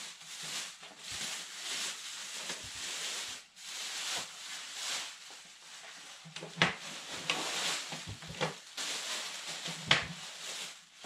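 Thin plastic bag rustling and crinkling as it is pulled down off a wooden tool chest, with a few sharper crackles, loudest about two-thirds of the way through and near the end.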